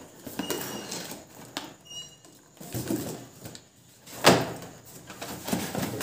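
Cardboard boxes being shifted about inside a corrugated carton: scraping and rustling of cardboard with a few short squeaks, and one sharp knock about four seconds in, the loudest sound.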